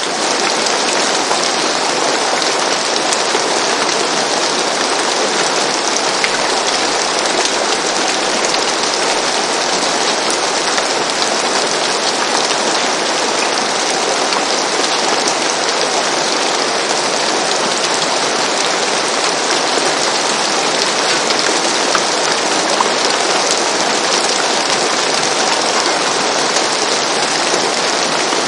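Steady rain falling on a roof: a dense, even hiss of many small drop impacts.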